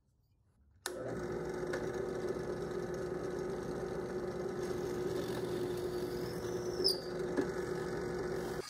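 Benchtop drill press running with a steady hum, boring bolt holes through a wooden side piece. It starts abruptly about a second in.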